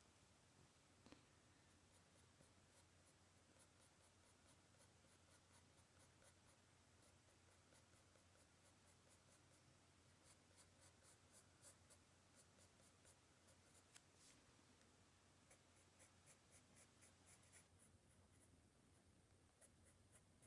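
Soft 3B graphite pencil scratching faintly on sketchbook paper in quick, short shading strokes, a few a second, coming in runs.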